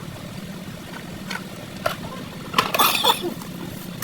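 Steady low mechanical hum with a few sharp metallic clicks, then a brief clatter of knocks about two and a half to three seconds in.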